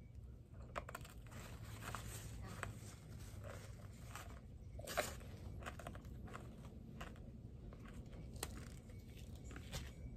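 A mouthful of small sour-coated candy pebbles being chewed: faint, irregular crunches and clicks throughout, one sharper crunch about halfway.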